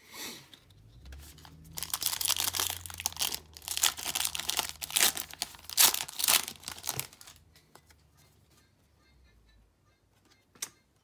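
Foil wrapper of a 2018 Panini Phoenix football card pack being torn open and crinkled: a run of rustling, tearing bursts for about five seconds, then only faint handling.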